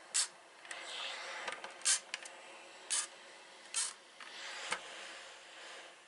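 Panasonic cordless steam iron giving short shots of steam while pressing fabric: four brief hisses about a second apart, with softer rustling between them.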